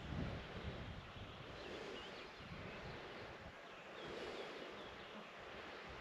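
Wind buffeting the microphone in low gusts, strongest in the first second, with a few faint, short bird chirps about two seconds in and again about four seconds in.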